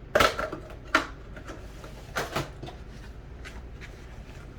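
A cardboard trading-card box being handled: three louder scrapes and knocks in the first two and a half seconds, then a few faint ticks.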